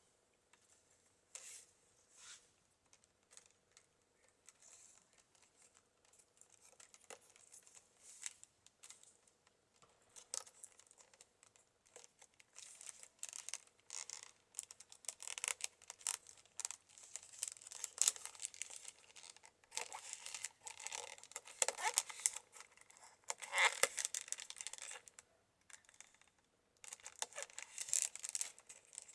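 Stiff pine-root weaving strips rustling, crackling and scraping as they are handled and woven into a basket. The noises come irregularly, sparse at first and busier and louder from about ten seconds in.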